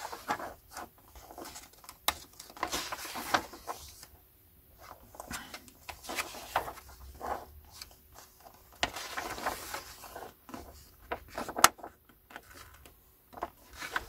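Hardback book being handled: pages turned and a paper dust jacket rustling, in irregular bursts with light knocks, and a sharp tap near the end.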